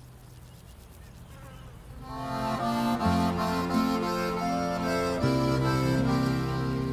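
Accordion starts playing about two seconds in: slow, held chords over a sustained bass, changing chord every couple of seconds.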